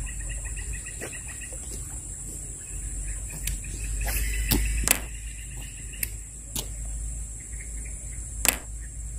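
Tropical insects buzzing steadily, with a fast pulsing chirp running through it, over a low rumble. Several sharp clicks sound through the second half, the loudest near the end.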